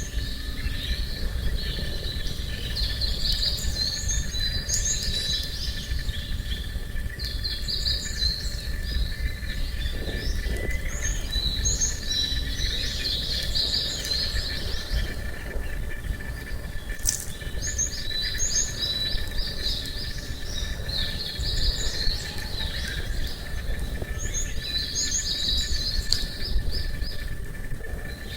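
Small birds singing in repeated bouts of quick high chirping phrases, every few seconds. Underneath runs a thin, steady, high insect drone over a constant low outdoor background noise.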